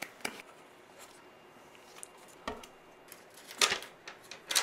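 A single clap near the start, then sheets of paper being handled, with two brief crisp rustles or flaps near the end as they are lifted and held up.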